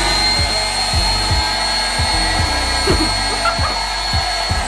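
Small electric balloon pump running with a steady high whine as it inflates a latex balloon, stopping at the very end.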